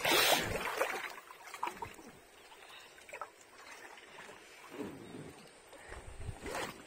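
Light splashes and drips of double-bladed kayak paddles dipping into shallow water, with the loudest splash right at the start and smaller scattered splashes after.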